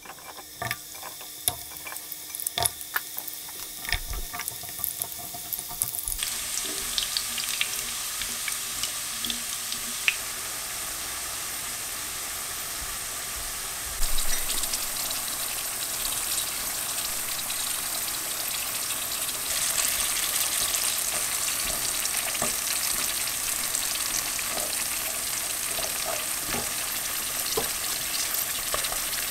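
Sweet potato slices shallow-frying in oil in a nonstick frying pan until golden brown. It starts as scattered pops and crackles, then settles after about six seconds into a steady sizzle that gets louder about halfway through.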